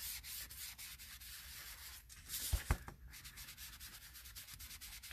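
Ink sponge dabbed and rubbed repeatedly against cardstock: a quick run of soft scratchy strokes, a few each second. Two low thumps come about two and a half seconds in.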